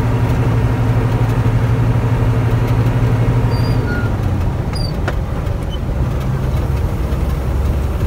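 Truck engine running while driving, heard from inside the cab. Its steady hum drops to a lower pitch about four seconds in. A few faint short high chirps sound in the middle.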